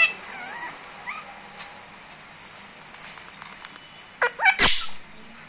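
Indian ringneck parrot making a few faint, short whistled chirps, then a loud, sharp, bark-like burst of calls about four seconds in.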